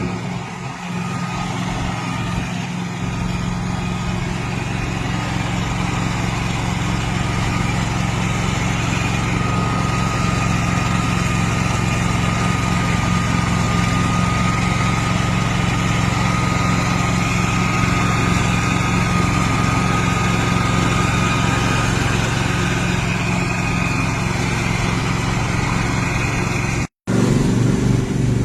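Engine of a Stiga Estate 9122 4x4 ride-on lawn tractor running steadily, with a thin high whine over the engine through the middle of the stretch. The sound breaks off briefly about a second before the end, then the engine is heard again.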